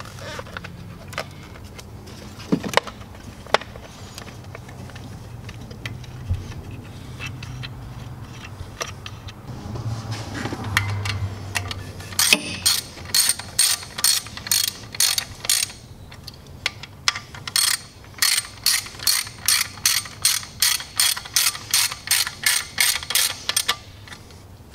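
Hand ratchet clicking as it is cranked on the upper intake manifold bolts, a rapid run of clicks at about three a second starting about halfway through, with a short pause in the middle. Before it, only a few light handling knocks over a low steady hum.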